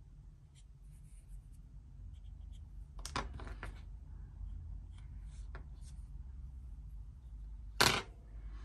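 Small clicks and taps of plastic model-kit engine parts and metal tweezers being handled, with a quick cluster of clicks about three seconds in and one sharp, louder click near the end. A low steady hum runs underneath.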